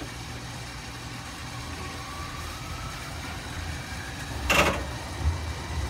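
Tokyu Setagaya Line tram heard from inside the cab: a steady low hum with a faint rising whine from the traction motors as it pulls away, and a single sharp clack about four and a half seconds in.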